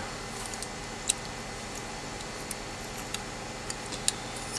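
Scattered small clicks and ticks from handling a circuit board and its aluminium heatsink plates while fitting a part, about seven in all, the sharpest about a second in, over a faint steady hum.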